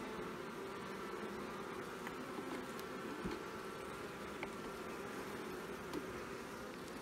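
Honeybees buzzing steadily over an opened hive, a hum of many bees at once, with a few light clicks.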